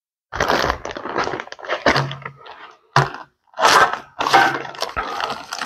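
A shop rag scrubbing across a bare steel cart top: a run of rough rubbing strokes, with a couple of short knocks mixed in.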